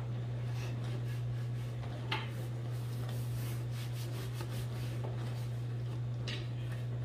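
Dish towel rubbing over a bamboo cutting board as it is dried by hand, with a couple of light knocks, about two seconds in and again near the end, over a steady low hum.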